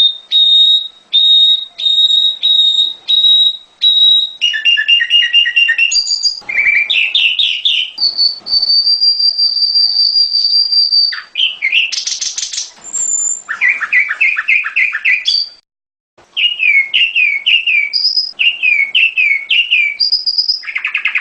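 Prenjak gunung songbird singing loudly and continuously. It gives a series of short high whistled notes, fast trilled phrases, a long steady whistle lasting about three seconds, and then quick falling chirps, with a brief silent break about three-quarters of the way through.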